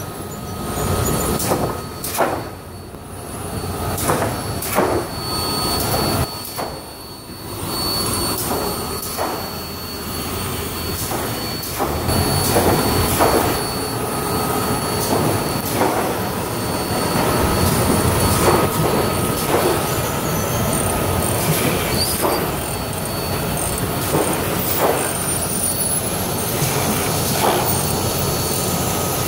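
Nursery tray-seeding line running: a steady machine noise with repeated knocks and clatter from the tray destacker, roller conveyor and gear motor.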